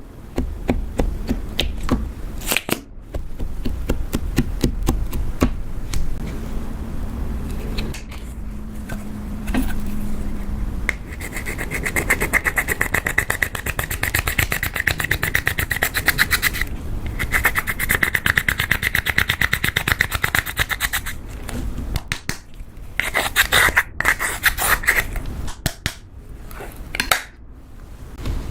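Slime being worked: scraping and rubbing with fast, fine crackling that grows dense and bright for several seconds in the middle, then breaks into scattered clicks.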